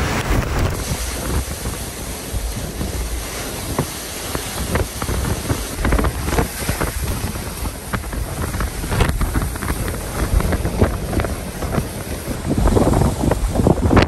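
Typhoon wind gusting hard and buffeting the microphone in repeated blasts, mixed with the wash of storm waves breaking against a harbour wall. It grows louder near the end.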